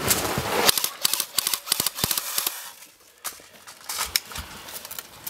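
Close-range airsoft gunfire: irregular runs of sharp snapping shots, with a brief lull a little past halfway before the firing picks up again.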